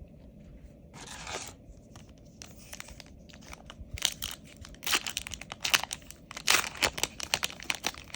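A foil booster-pack wrapper being torn open and crinkled in the hands: a short swish, then from about halfway a quick run of sharp crackles.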